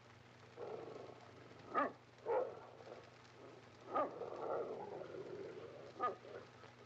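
Wolves growling and barking in a pit, with a few sharp barks standing out over a lower, steady snarling.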